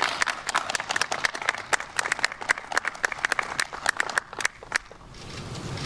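Several people applauding with dense hand claps, which thin out and stop about five seconds in.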